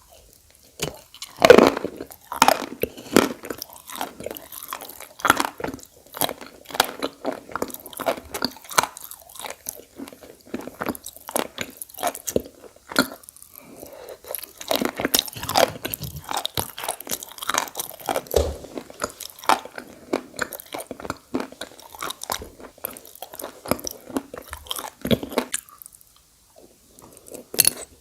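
Edible khawa clay being bitten and chewed close to the microphone: irregular, crisp crunching and crackling, with a brief pause near the end.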